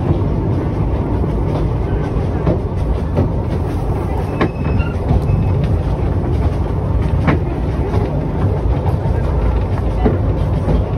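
Narrow-gauge train running along the line: a steady low rumble, with a couple of sharp clicks from the wheels and track about four and a half and seven seconds in.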